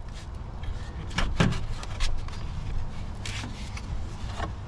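Scattered plastic clicks and knocks as hands shift the fuse block and terminal cover mounted on top of a car battery, over a steady low rumble.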